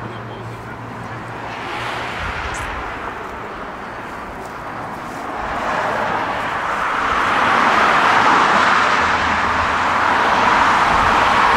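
Vehicle running noise outdoors, a steady rushing sound that swells louder about halfway through and stays up.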